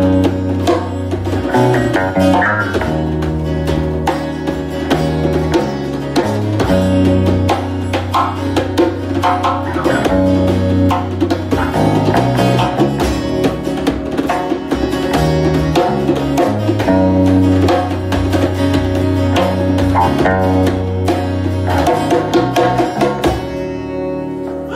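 Live acoustic band playing without vocals: acoustic guitar chords over a moving bass line, with djembe hand drumming. Near the end the drumming stops and a final chord rings out.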